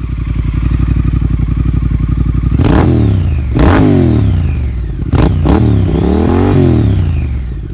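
Triumph Thruxton 1200 R's 1200 cc parallel-twin engine with the catalytic converter removed, idling steadily and then revved: several quick throttle blips from about a third of the way in, the revs rising and falling each time.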